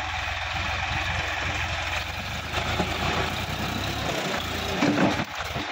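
Sonalika DI-50 RX tractor's diesel engine running steadily as the tractor drives over rough ground, with a brief louder burst about five seconds in.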